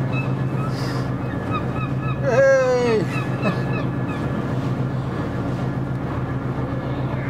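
A boat engine's steady low hum, with one loud, half-second honking squawk falling in pitch about two and a half seconds in, and a few small chirps before it.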